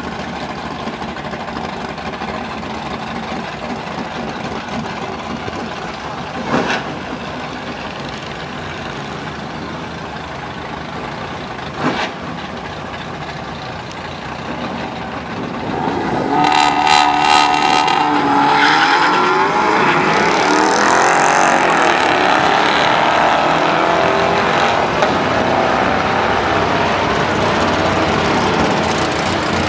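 Car engines idling and burbling at a drag strip, with two sharp knocks, then about halfway through the Volkswagen Golf R and Holden Commodore launch and race. Their engines rev hard, rising and falling in pitch through the gear changes, and stay loud to the end.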